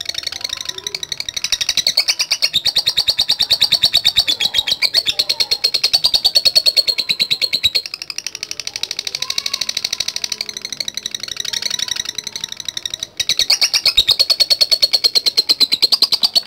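Lovebird singing a long, very fast chattering trill (the 'ngekek' song prized by Indonesian lovebird keepers), continuous except for a short break about thirteen seconds in, then cutting off abruptly.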